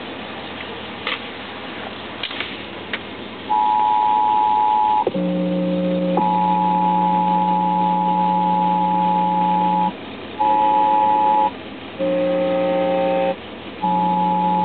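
Emergency Alert System attention signal broadcast over radio. After a few seconds of hiss, a loud steady two-tone beep starts about three and a half seconds in, is joined by a lower buzzing tone, and cuts out and restarts several times.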